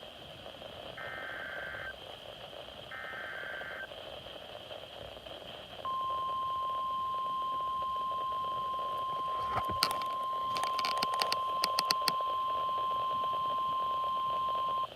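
Weather radio sounding an Emergency Alert System alert for a flash flood warning. Two short raspy data bursts of the SAME header come a second apart near the start; about six seconds in, a single steady alert tone begins and holds for about nine seconds. A few crackles of static come partway through the tone.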